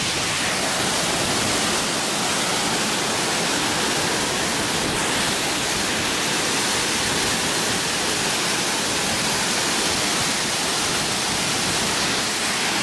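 Loud waterfall: a steady, even rush of falling water.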